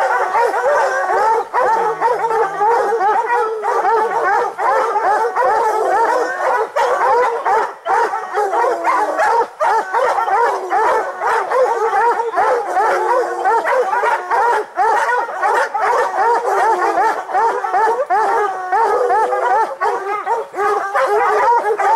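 A pack of hunting hounds baying and barking without a break, many voices overlapping. This is the steady chop of hounds that have a bear treed.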